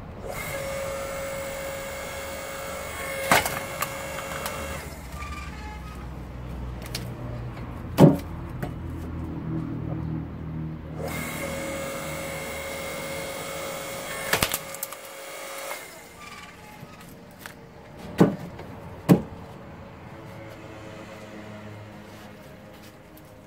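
AL-KO KHS 5204 electric hydraulic log splitter running. The motor and pump whine steadily under load in two long spells while the ram drives logs onto the wedge, with sharp cracks as the wood splits, the loudest about eight seconds in, and two loud knocks of split wood near the end.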